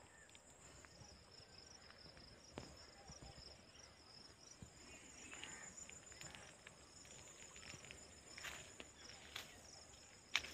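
Faint, steady high-pitched chirring of insects in a crop field, with a few soft knocks, the loudest near the end.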